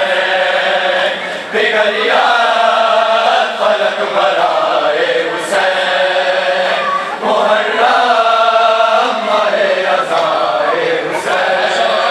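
Men chanting a noha, a Muharram lament, together in sung phrases a few seconds long with brief pauses between them.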